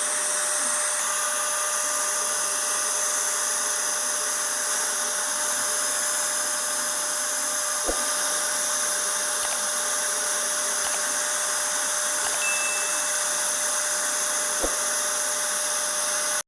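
CNC router spindle running steadily while carving a 2.5D design, a constant high whine and hiss with a few faint ticks in the second half.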